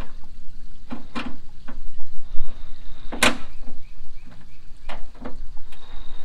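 Scattered knocks and clacks of hand work on a pickup truck's front body panels and parts, with one sharp, loud knock about three seconds in.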